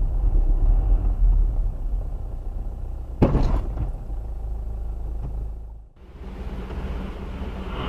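Car driving as heard by a dashcam: a steady low road and engine rumble, with a sudden loud thump a little over three seconds in. Just before six seconds the sound dips out briefly and picks up again as a similar rumble with a faint higher hum.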